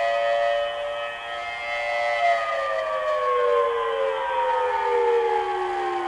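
Air raid siren wail from an operating HO scale model siren, holding a steady pitch and then winding down in a slow falling glide from about two seconds in.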